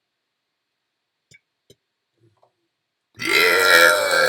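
Near silence with two faint clicks, then a person's long, loud burp begins about three seconds in.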